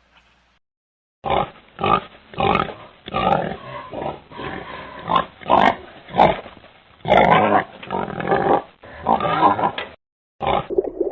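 Pig grunting and oinking in a run of short, irregular calls, starting about a second in, with a brief break near the end.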